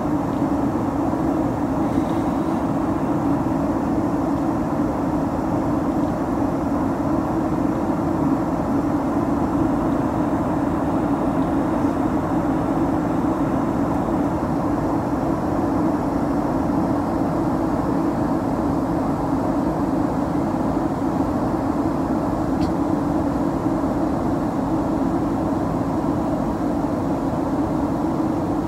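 Steady airliner cabin noise during descent: an even rush of engine and airflow with a constant low hum running under it, heard from inside the first-class cabin.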